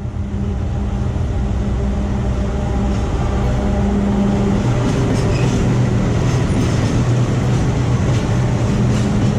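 A train running close by on the track: a loud, steady rumble with a low locomotive hum that swells over the first second and then holds.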